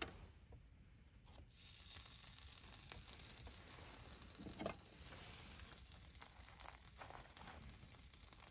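Steady sizzling hiss from cooking on a camp gas burner, starting about a second and a half in, with a single light knock near the middle.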